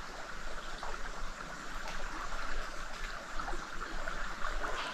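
Creek water trickling and flowing, a steady even rush with a few faint ticks.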